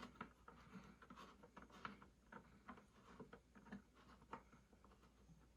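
Faint, irregular clicking and tapping of a small Allen key turning screws into a wooden speaker case.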